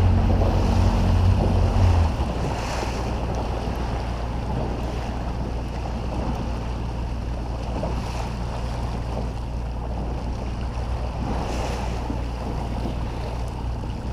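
A small boat's motor idling, its low hum stopping about two seconds in. After that, wind buffets the microphone and small waves lap at the drifting boat.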